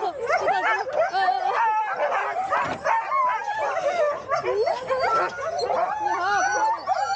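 Many sled dogs barking and yelping at once, a dense, continuous din of overlapping calls.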